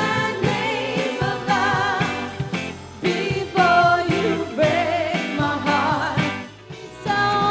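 Pop music with a singing voice, its pitch wavering with vibrato, over a band with a steady beat; the music drops briefly about six and a half seconds in.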